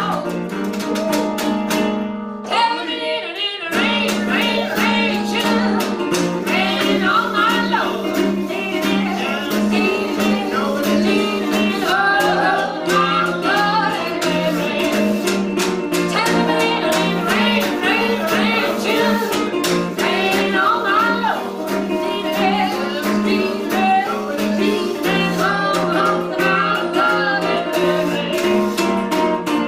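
Live duo music: a woman singing while playing a washboard, whose scrapes and clicks keep a rhythm, over a strummed acoustic guitar. About two seconds in, the instruments drop out for about a second under the voice, then come back in.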